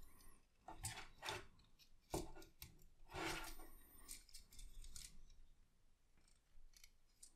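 Faint, scattered clicks and scrapes of a hard plastic Transformers Studio Series Optimus Prime action figure being handled, its parts pressed together and tabs worked into slots during transformation.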